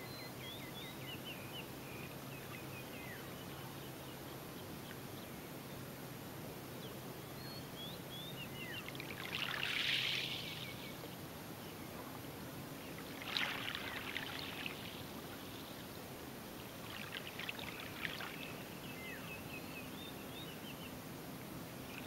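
Gentle lapping of a calm, nearly waveless sea on a sandy shore: three soft swishes of water washing up, about ten, thirteen and seventeen seconds in, over a steady faint hiss. Birds chirp faintly near the start and again near the end.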